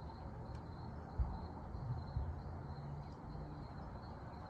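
Faint steady high chirring of insects, with a single dull low knock about a second in and a brief low hum after it.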